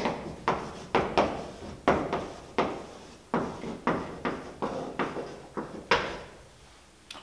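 Chalk writing on a blackboard: a quick series of sharp chalk strokes and taps, about two or three a second, stopping about six seconds in.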